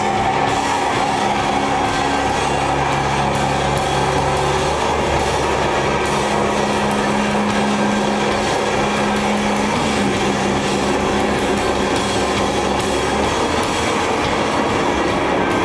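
A live band playing a loud, dense drone: a steady wall of noise over long held low notes that shift every few seconds.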